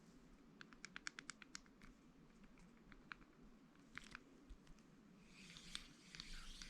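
Faint handling of a Shimano 22 Stella C200SHG spinning reel: a quick run of small clicks, then a few single clicks, then a rustle near the end.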